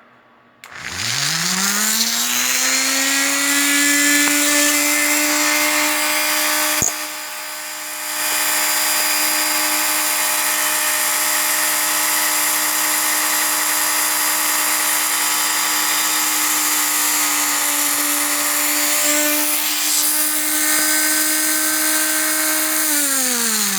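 Rotary tool on a flexible-shaft extension, fitted with a small Jacobs chuck and a fine drill bit, running at its lowest speed while drilling a small hole in a cooling fan. It spins up with a rising whine about a second in and runs steadily. About seven seconds in there is a click and the sound drops for a moment, and near the end it winds down with a falling pitch.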